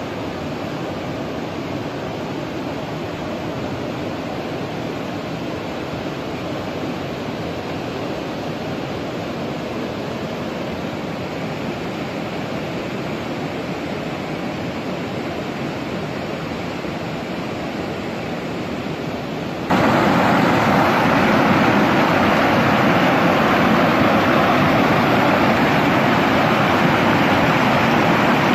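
A steady rushing noise, then about two-thirds of the way in an abrupt cut to the louder, fuller rush of a fast, muddy flooded river pouring over rocks.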